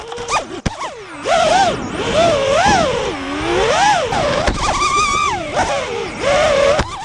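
An FPV racing drone's brushless motors whining, the pitch swooping up and down again and again with the throttle, with a few sharp knocks.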